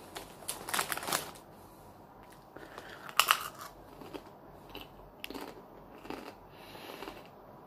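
Potato crisps being bitten and chewed, a series of sharp crunches, the loudest about three seconds in and weaker ones after. The crisp bag rustles in the first second or so as a crisp is taken out.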